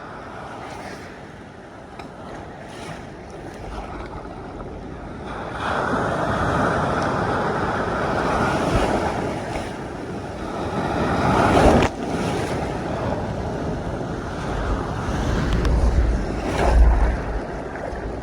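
Large ocean waves breaking in the surf, a rushing wash that grows much louder about a third of the way in, surges to a peak that cuts off suddenly midway, and surges again near the end, with wind buffeting the microphone.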